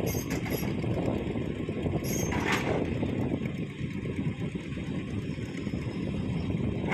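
Heavy engine running steadily, with a brief hiss about two and a half seconds in.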